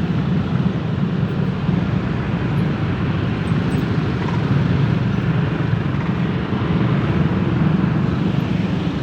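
Steady low engine rumble of a large tour bus, a constant drone with no horn melody sounding.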